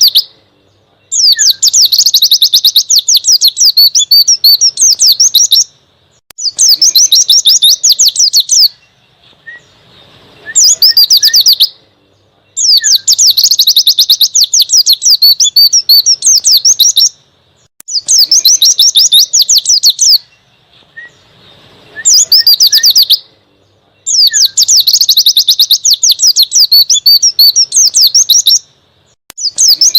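White-eye (pleci) singing loud, rapid, high twittering song in bursts of one to five seconds, broken by short pauses.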